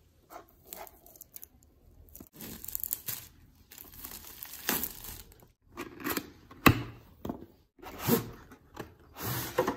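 Clear plastic shrink wrap being slit and torn off a cardboard box, in irregular crinkling rips, the loudest near the middle and toward the end.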